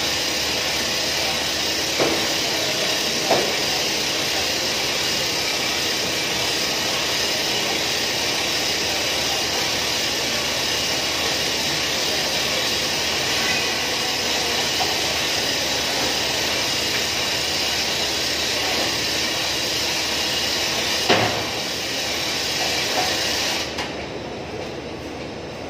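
Hand-cranked duct lift winding up a galvanised sheet-metal duct section: a steady mechanical rattle, with a few sharp metal clanks. It quietens about three-quarters of the way through, as the cranking stops.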